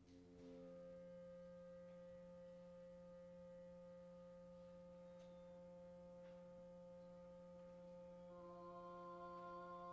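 Hand-built loudspeaker-and-microphone feedback instruments sustaining a quiet chord of steady tones: a low hum with several higher pure tones above it. About eight seconds in, more feedback tones join and the sound grows slightly louder.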